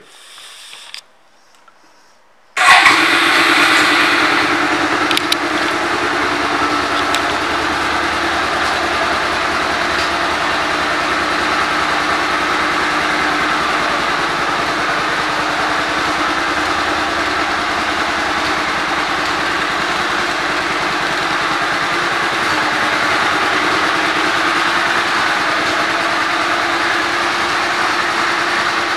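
1998 Suzuki Marauder's 805 cc V-twin engine starting. It catches about two and a half seconds in with a loud burst, then settles over the next few seconds into a steady idle.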